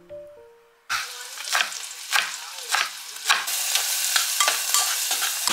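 A metal spoon stirring in a saucepan on the hob, clinking and scraping against the pan about twice a second, over the steady sizzle of the pan's contents. The sizzle thickens about halfway through.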